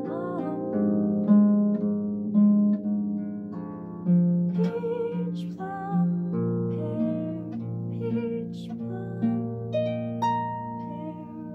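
Concert pedal harp played in a flowing run of plucked notes and chords over low bass notes. A woman's voice sings along in places, with wavering held notes.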